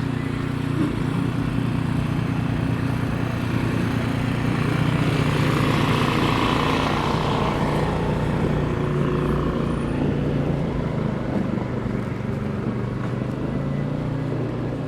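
City street traffic: a heavy engine idling with a steady low hum, while a vehicle passes by, growing louder toward the middle and fading away after.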